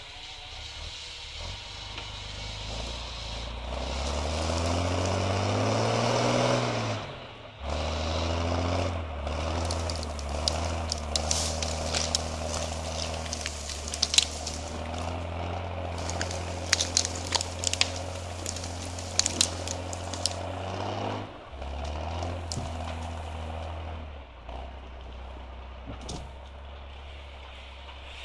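Mercedes-Benz Unimog's diesel engine revving up, then pulling under load at steady revs while skidding tree trunks, with many sharp cracks and snaps of wood and branches. About twenty seconds in the engine drops back and runs quieter.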